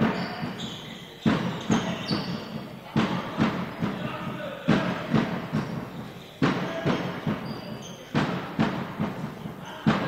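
Handball bouncing and thudding on a sports-hall floor, with irregular sharp impacts about once or twice a second that echo through the hall, and short high squeaks of shoes between them.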